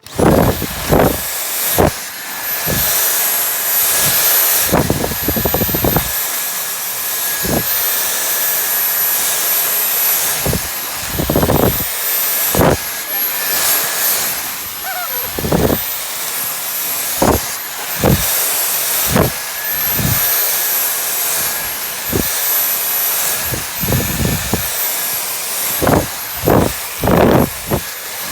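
Vacuum cleaner switching on and running steadily with a high whine, with irregular bumps and swells as the nozzle is pushed back and forth over the floor.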